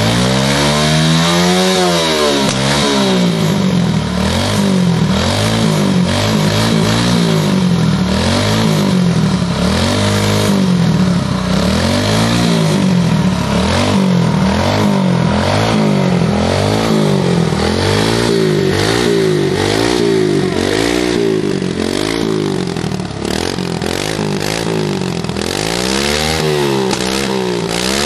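Kawasaki mini dirt bike engine revved on the spot, blipped again and again so the pitch rises and falls about once a second.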